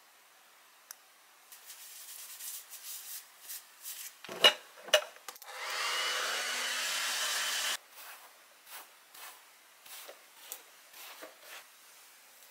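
Handheld hair dryer blowing for about two seconds, its whine rising as it starts up, then cutting off suddenly. Just before it, two sharp knocks, with soft rubbing and handling sounds before and after.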